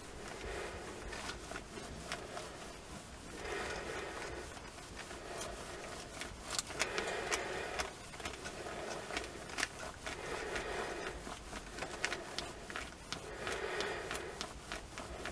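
Household iron sliding back and forth over folded newspaper, a papery scraping rustle that swells with each stroke every few seconds, with small crinkles and clicks. The iron is heating a warped plastic radio dial flat between the sheets.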